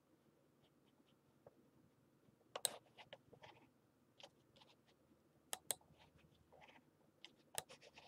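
Near-silent room with scattered faint computer-mouse clicks as the Google Earth view is moved: a cluster about two and a half seconds in, a pair about five and a half seconds in, and a few more near the end.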